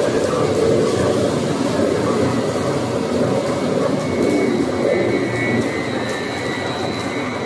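Spindle veneer peeling rotary lathe running, spinning a log against its knife as it peels veneer: steady machine noise, with a thin high whine joining about four seconds in.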